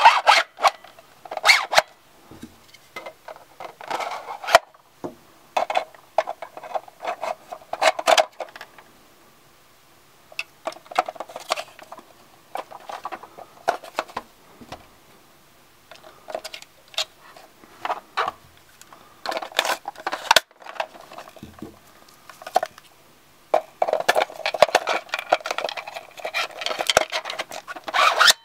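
Plastic toy-blaster and stock parts handled and fitted together by hand: scattered clicks, knocks and scraping rubs in short groups, with a longer stretch of continuous scraping near the end.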